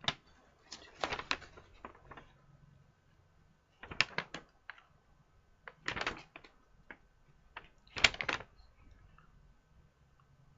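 Handling noise from a plastic model kit's contents: short bursts of rustling and sharp clicks, four or five times, with quiet gaps between.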